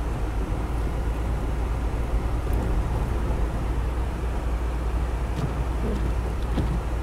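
Steady in-cabin rumble of a car driving slowly on snow-covered roads: low engine and road drone with an even hiss of tyres on snow.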